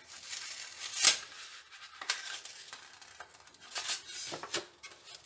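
Paper rustling and crinkling as a folded white card base is handled and lifted, with a sharp crackle about a second in.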